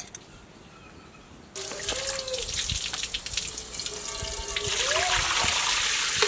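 Water from an outdoor tap running and splashing into an aluminium colander in a stone sink, starting suddenly about a second and a half in after a quiet stretch; near the end, leafy greens are tipped into the running water.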